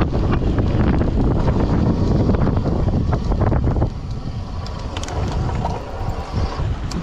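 Wind buffeting the camera's microphone and tyres rumbling on a dirt track from a gravel bike ridden at speed. It drops sharply about four seconds in as the bike slows, leaving a quieter rolling sound with a few sharp clicks.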